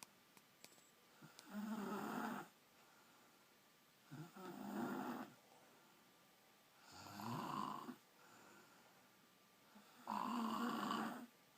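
A sleeping woman snoring: four loud snores, each about a second long and about three seconds apart, with quiet breathing between.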